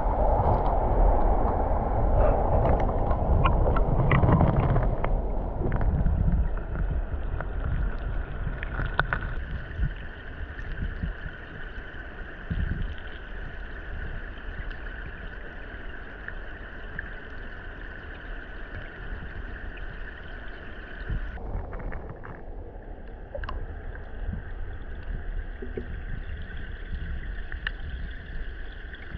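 Mountain stream water running and gurgling steadily, with a heavy low rumble of wind on the microphone for the first several seconds. The water sound changes abruptly about 21 seconds in.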